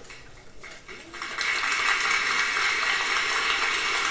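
Audience applauding, the clapping swelling in about a second in and then holding steady.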